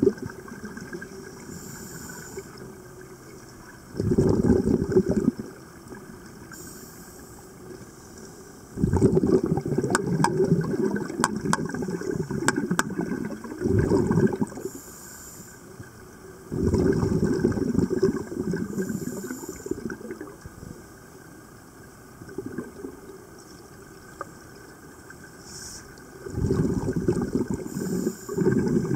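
Scuba regulator breathing heard underwater: about five long, low rumbling bursts of exhaled bubbles a few seconds apart, with a short high hiss of inhalation through the regulator between them. A few sharp clicks come about ten to thirteen seconds in.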